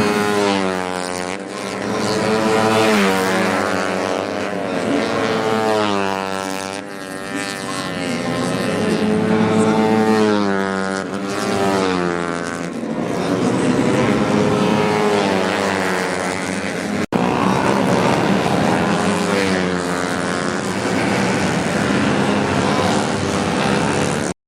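Several 125cc four-stroke underbone racing motorcycles running at full throttle, their engine pitch climbing and then dropping sharply again and again as they shift up through the gears, several engines overlapping.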